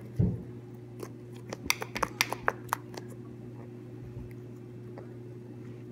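Hands squeezing and stretching soft, foamy slime: a dull thump just after the start, then a quick run of sharp clicks and pops over about a second as air pockets in the slime burst. A steady low hum lies underneath.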